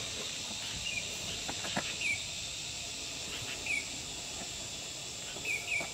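Outdoor ambience: a steady high insect drone, with a few short bird chirps scattered through it.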